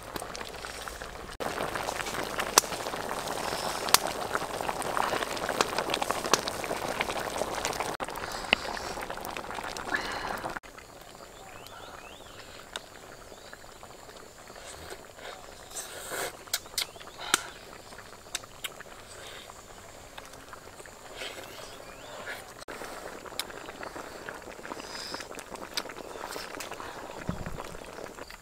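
A wok of soup boiling over a wood fire, an even bubbling hiss with occasional ladle and bowl clicks. About ten seconds in it gives way to a quieter stretch of eating, with scattered clinks of spoons against bowls.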